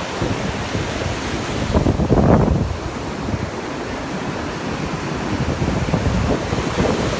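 Ocean surf breaking and washing up the beach, with wind buffeting the microphone; one wave surges louder about two seconds in.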